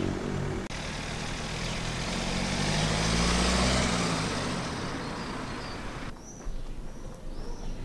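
A road vehicle passing by, its engine and tyre noise swelling to a peak about three and a half seconds in and then fading away. Small high bird chirps near the end.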